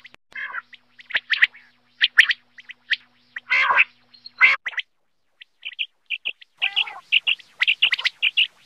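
Common quail calling: short, sharp, high calls in quick runs, with a pause of about a second near the middle.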